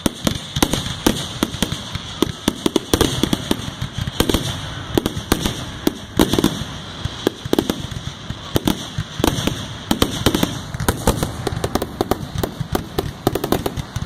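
Aerial fireworks shells bursting in quick succession: a dense, unbroken run of bangs and crackles, several a second.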